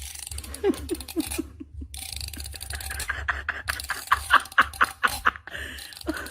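People laughing in short repeated bursts: a brief run of low laughs about a second in, then a longer run of higher-pitched laughing from about three seconds in.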